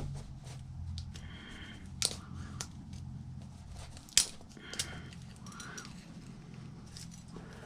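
Hand work on the glued deflection yoke of a small picture tube: a few sharp clicks, the loudest about four seconds in, with short scraping sounds between them, over a steady low hum.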